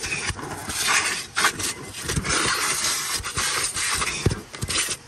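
Vacuum cleaner running, its nozzle dragged over car seat upholstery; the hiss of suction rises and falls as the nozzle moves and scrapes across the fabric.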